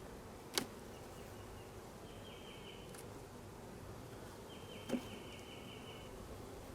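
Honeybees humming around an open hive, with two sharp knocks about half a second in and near five seconds in, from hive parts being handled. A high, pulsing insect trill comes and goes in short bouts.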